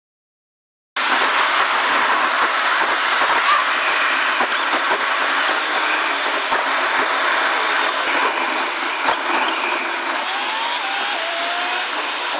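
Steady road noise of a car driving along a city expressway, tyres and wind on the road, starting suddenly about a second in. A faint, brief rising whine sounds near the end.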